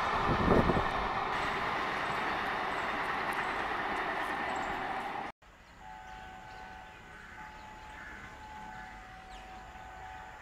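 A passenger train running past on the tracks, a dense rumble of wheels and coaches that slowly fades and then cuts off suddenly about five seconds in. After that, fainter, a WDM diesel locomotive's horn sounds in several long, steady blasts.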